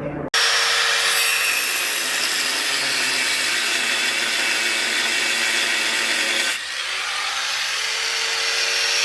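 Angle grinder cutting into the heads of metal one-way security screws, a continuous loud grinding that starts abruptly and changes character about six and a half seconds in, with a steady whine near the end.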